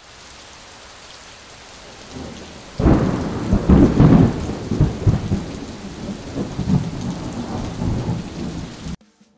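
Steady rain hiss, then a sudden loud thunderclap about three seconds in that rumbles on, rising and falling, until the sound cuts off abruptly near the end; a thunderstorm sound effect.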